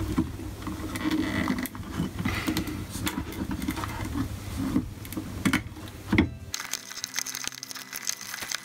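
Hands working wires and plastic connectors on an electric unicycle's control board, a rumbling handling noise with scattered clicks and knocks. About six and a half seconds in, this cuts off suddenly and background music begins.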